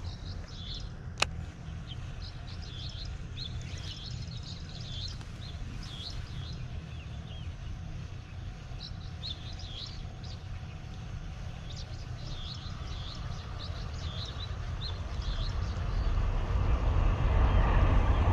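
Small birds chirping in short, repeated calls over a steady low rumble, with a single sharp click about a second in. The rumble grows much louder in the last couple of seconds.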